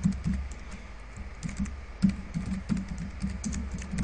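Typing on a computer keyboard: an irregular run of keystroke clicks, with a lull after the first few keys and then a quicker run of keystrokes.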